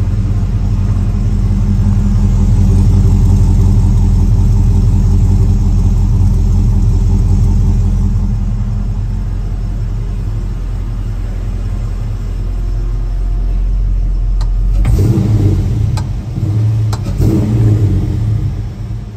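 1955 Chevrolet Cameo pickup's engine idling shortly after a cold start, a steady low exhaust rumble. A few sharp clicks and knocks come near the end.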